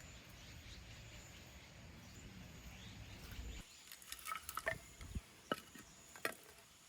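Faint outdoor ambience with insects chirping, then, after a sudden change about halfway through, a handful of sharp knocks and clicks.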